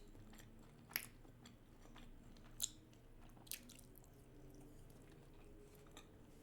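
Faint chewing of a mouthful of sushi, with four short, soft wet mouth clicks spread through it.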